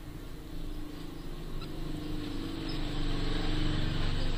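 A motor vehicle's engine running and growing steadily louder.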